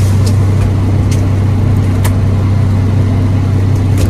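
Fishing boat's engine running with a steady low drone, and a few sharp knocks from work on deck scattered over it.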